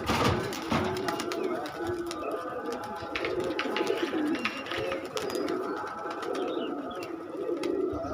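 A flock of domestic pigeons cooing, many calls overlapping, with scattered sharp clicks among them.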